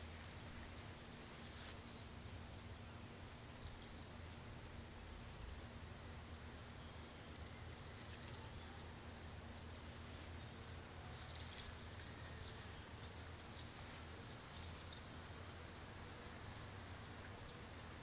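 Faint outdoor ambience: a low steady hum under scattered short, high chirps that come and go, with a brief louder flurry about eleven seconds in.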